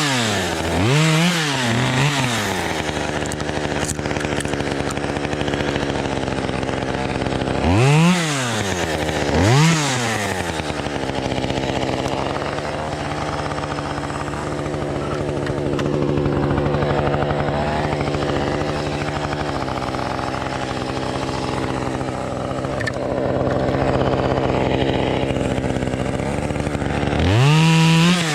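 Chainsaw running steadily, blipped up to high revs and back down briefly a few times: once near the start, twice close together about eight to ten seconds in, and once near the end.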